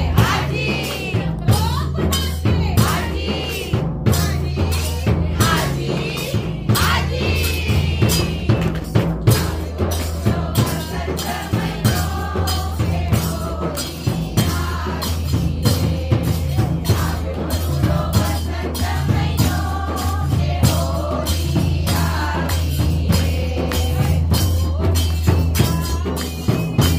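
Women singing a Gujarati devotional kirtan together, with steady rhythmic hand clapping and light percussion keeping time over a constant low hum.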